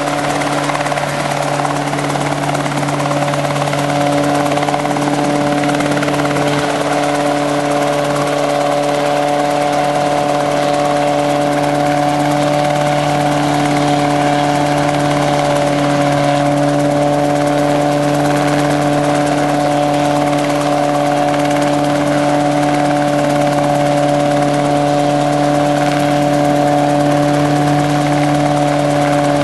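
Rotorway helicopter hovering just above the ground and turning on the spot in pedal turns, the tail rotor working to swing it around. Its engine and rotors give a loud, steady drone with an unchanging low hum.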